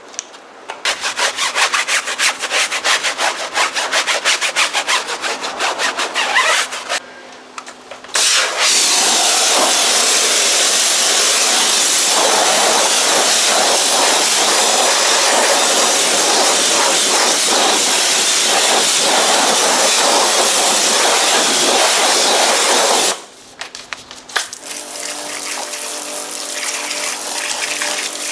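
A stiff brush scrubbing a car wheel in rapid back-and-forth strokes, then a Kärcher K3 Silent pressure washer spraying water in a long steady jet to rinse the wheel for about fifteen seconds. Near the end the spray stops and a quieter steady hum with water noise follows.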